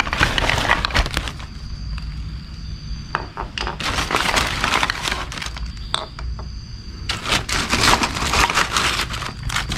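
Plastic shopping bag rustling and crinkling in three long bursts as a hand rummages through it, with plastic pipe fittings inside knocking together in a few sharp clicks.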